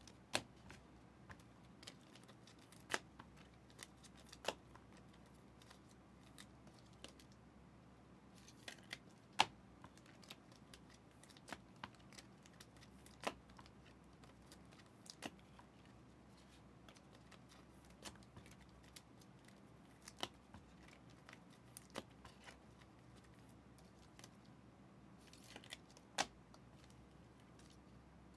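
Prizm football trading cards being handled and laid down on a stack: scattered soft clicks and snaps at irregular intervals over a near-quiet background, the sharpest about nine seconds in.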